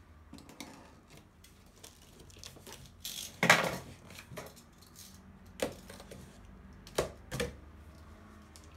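Cardboard turntable box being cut open with a utility knife and handled: scattered light taps and rustles, a loud rasping burst lasting under a second about three and a half seconds in, then a few sharp knocks.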